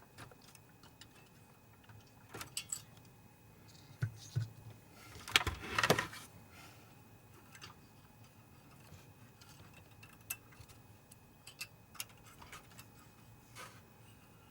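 Scattered small clicks and rattles of a projector's parts and wire connector being handled, with a louder clatter about five to six seconds in.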